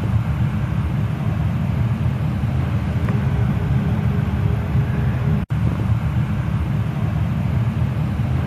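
Goodman GMNT080-4 gas furnace running steadily, a low, even rumble of the burners and blower with a faint hum above it. The sound drops out for an instant about five and a half seconds in.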